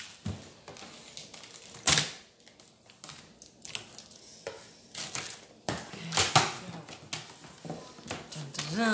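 Cardboard packaging being handled and opened by hand: irregular sharp knocks, clicks and scrapes of cardboard.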